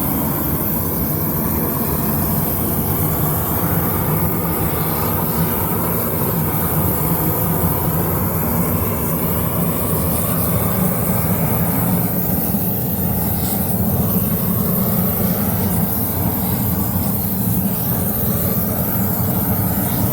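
Diesel roofing burner running steadily at a constant loud level, with a low even hum under the rush of the flame.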